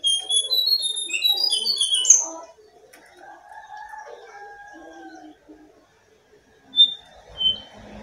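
Jongkangan songbird singing: a dense run of fast, high chirps and whistles for about two seconds. A fainter drawn-out call follows, then two sharp chirps near the end.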